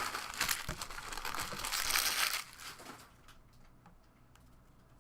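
Crinkling and tearing of a trading-card box's shrink-wrap and foil packs being ripped open by hand. The rustle stops about two and a half seconds in, leaving only faint handling ticks.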